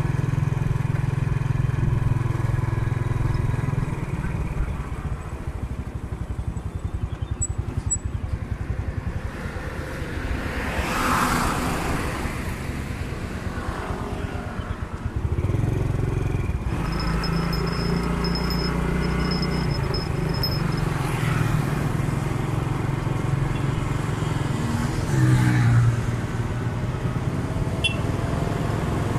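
Motorcycle engine running under the rider as it rides along. The engine eases off about four seconds in and picks up again about fifteen seconds in, with another vehicle briefly passing close about eleven seconds in.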